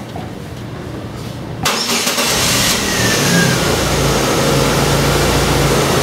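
A 2000 Chevrolet Cavalier's engine cranks and starts about a second and a half in, then settles into a steady idle.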